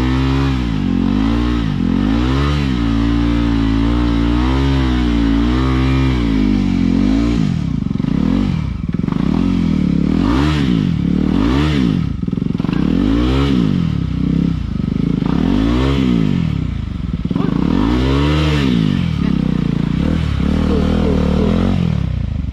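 Adventure motorcycle engine revved over and over as it is worked out of deep mud, with quick blips about once a second at first, then bigger, slower revs every second or two while helpers push.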